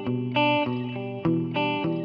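Electric guitar (Fender Jazzmaster Modern Player) played through an Ibanez DE-7 delay pedal and a simulated Fender Princeton Reverb amp: three picked notes or chords struck in turn, each ringing on into the next.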